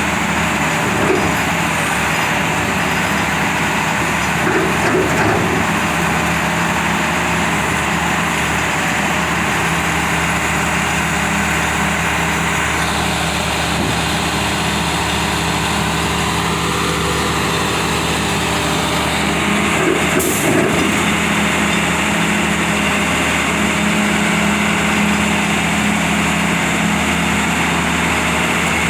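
Cummins inline-six diesel engine of a Badger 670 mobile excavator running steadily, with a brief clunk about twenty seconds in.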